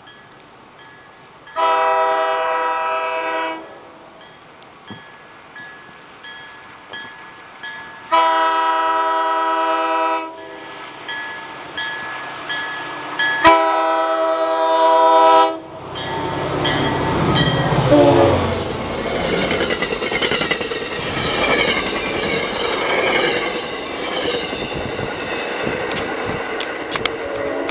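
MBTA commuter train's locomotive horn sounding three long blasts of about two seconds each, then the train passing close by: a loud rush of wheel and engine noise with clickety-clack on the rails and a drop in pitch as the locomotive goes by.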